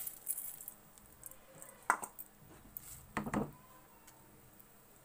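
A few scattered knocks and scrapes of a wooden spatula against a wide metal pan as dry vermicelli is poured into boiling water and stirred in. The sharpest knock comes about two seconds in, with a short cluster just after three seconds.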